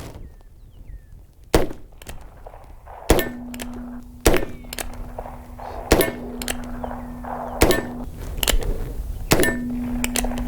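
A series of .22 LR shots from a short-barrelled single-action revolver, one every one to two seconds. The bullets hit an AR500 steel target, and each hit leaves the plate ringing with a steady low hum for a second or so.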